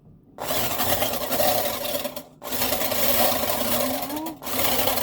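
Eggs being beaten in a bowl in three runs, with short pauses about two and four seconds in.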